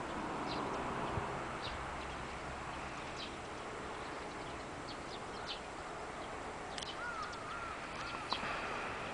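Outdoor background hum with scattered short, high bird chirps, and a brief wavering whistle-like tone about seven seconds in.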